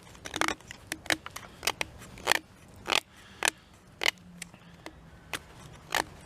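The freshly sharpened blade of a cheap multi-tool making a series of short, sharp cutting strokes, irregular and about one or two a second, as its sharpness is tested.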